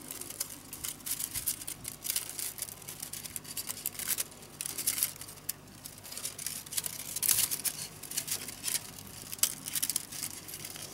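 Thin split-bamboo strips, about 3 mm wide and 0.3 mm thick, clicking, scraping and crackling against each other as one strip is threaded over and under the uprights of a woven bamboo side. Irregular quick ticks and rustles, with a few louder snaps.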